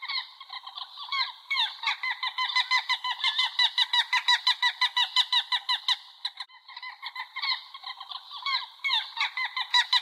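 Gulls calling in a fast run of short, nasal, repeated calls, several a second. The calls pause briefly just past the middle, then start again.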